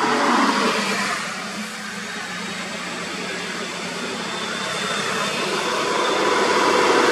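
Diesel truck engine and tyre noise as a cargo truck approaches, growing steadily louder over the last few seconds. A vehicle goes by close to the microphone in the first second.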